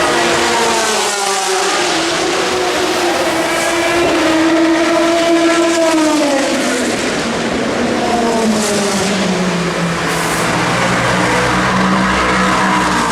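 Several race cars passing at speed on a circuit. Their engine notes sweep up in pitch as they approach and drop away as they go by, one after another, loud throughout.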